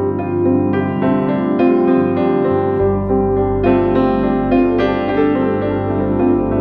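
Slow, calm piano music of held notes, with a deep bass note joining about three seconds in.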